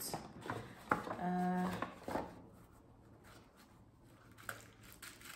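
A woman's drawn-out admiring vocal sound held on one steady pitch for about half a second, with a few light clicks from handling gift packaging before and after it.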